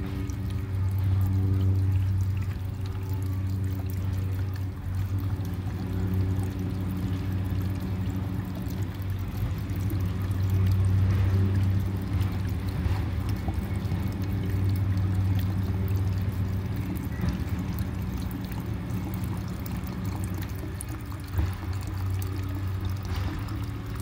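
Vodka poured steadily from a bottle into a jar of chopped wild lettuce, filling the jar, over a steady low hum.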